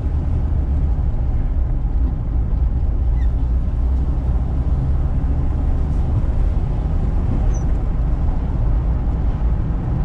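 Steady low rumble of a car driving, with engine and tyre noise heard from inside the cabin.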